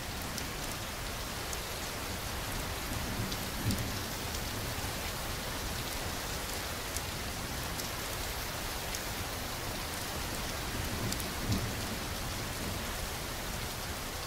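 Steady heavy rain with distinct drops ticking through it, and two brief low rumbles of thunder, one about a quarter of the way in and one past the three-quarter mark.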